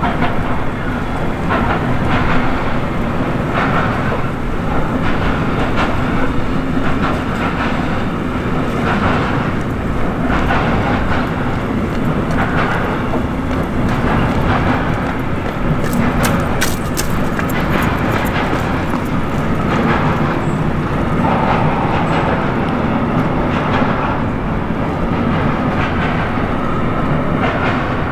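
Container freight train rolling past over a bridge: a steady, loud rumble of wagons with the wheels clacking over rail joints, and a few sharp high ticks about halfway through.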